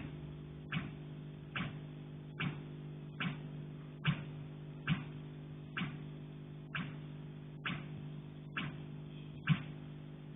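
Repeated sharp knocks on a pipe, about one every 0.8 seconds and fairly even in rhythm, over a steady low hum.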